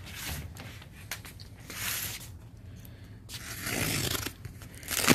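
Cardboard box being torn open by hand: two stretches of tearing and scraping, then a couple of sharp knocks near the end.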